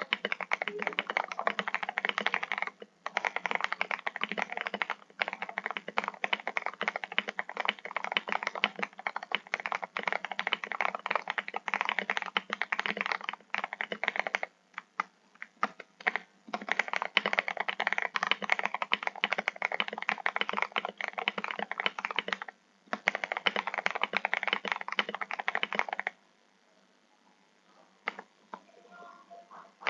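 Fast typing on an RK G68 mechanical keyboard with TTC Gold Pink linear switches: a dense stream of keystroke clacks, with a few brief pauses, stopping a few seconds before the end.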